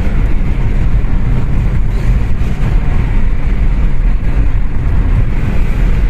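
Steady road and tyre noise with engine hum, heard from inside a Kia Seltos's cabin as it cruises at highway speed.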